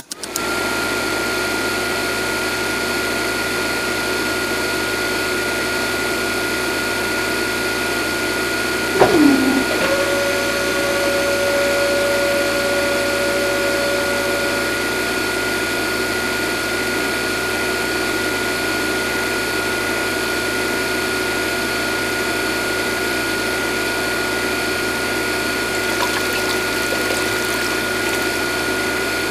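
Small electric motor of a toy borewell drilling rig running steadily with a high whine as it spins its auger into sand. About nine seconds in there is a brief knock with a dropping pitch, then an extra tone for a few seconds.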